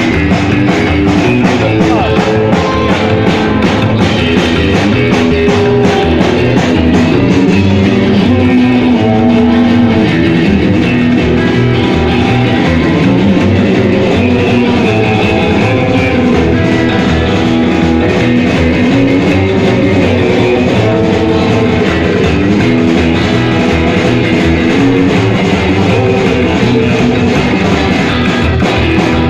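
Band music led by guitar with a drum kit keeping a steady beat.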